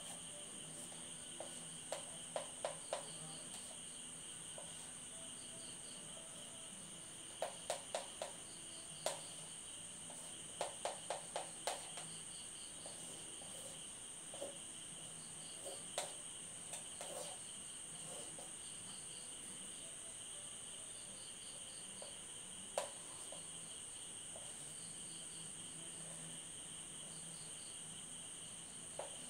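Marker pen on a whiteboard: scattered clusters of quick taps and short strokes as a circuit diagram with zigzag resistors is drawn, over a steady high-pitched trill.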